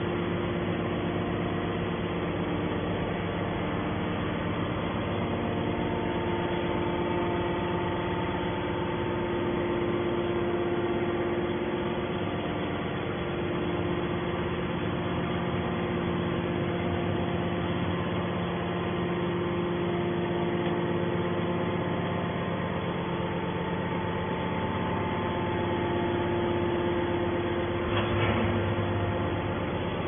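Hydraulic power unit of a metal scrap baler running steadily, an even hum with several constant tones, with a brief knock near the end.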